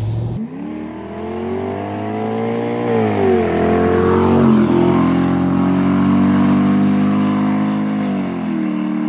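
Straight-piped 3.2-litre V8 of a 2001 Jaguar XJ8, exhaust open from the manifold, accelerating hard and heard from outside. Its pitch climbs, drops at an upshift about three seconds in, then climbs again and holds.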